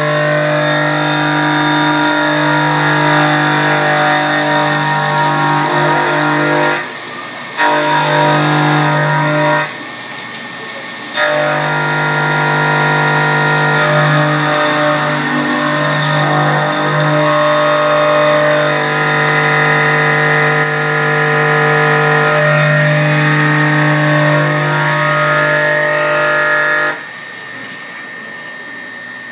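CNC mill's end mill cutting an aluminium block under flood coolant: a loud, steady pitched cutting tone. It drops away briefly twice about a third of the way in, and again near the end.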